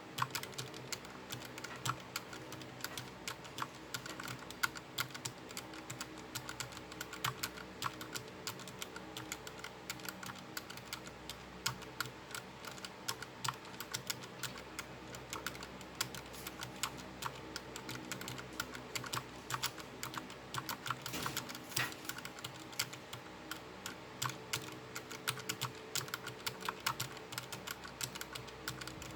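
Continuous fast typing on a mechanical keyboard with the keycaps removed, fingers striking the bare switches in a dense run of clicks, over a faint steady low hum.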